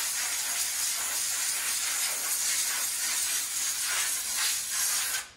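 Powder-coating spray gun hissing steadily as compressed air blows powder onto radiator shutters; the hiss cuts off suddenly near the end.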